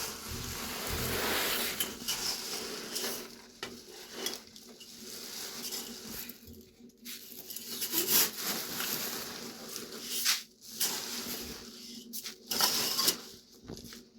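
Irregular scraping, rustling and a few sharp knocks from work at a beehive, over a faint steady hum of honeybees.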